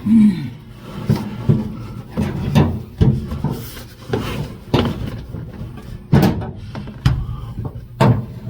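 Hand scraper strokes on a Ford flathead V8 block, scraping off old head-gasket material: about ten sharp, uneven scrapes and knocks.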